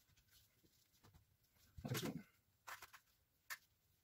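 Near silence with a few brief handling sounds: a short scrape about two seconds in, then small clicks, as gloved hands fit and temporarily screw on a side plate of the airgun's frame.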